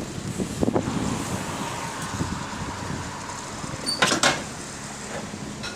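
Arriva London T-class bus at the stop, with a steady whine in the first seconds, then sharp door knocks about four seconds in as its doors work, and a low engine hum near the end.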